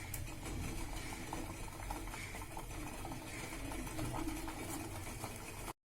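Low, steady simmering of a double boiler, with faint clicks of a spoon stirring in the bowl. The sound drops out for a moment near the end.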